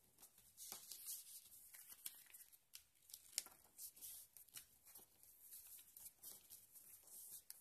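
A sheet of paper being folded by hand and pressed flat on a table: faint rustling and short crisp scrapes as the fingers smooth down the creases, with one sharper click about three and a half seconds in.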